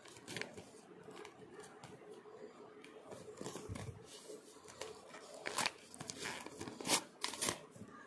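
Clear plastic packaging bag and paper leaflet handled by hand, crinkling and tearing in short irregular rustles that grow louder in the second half, the sharpest about five and a half and seven seconds in.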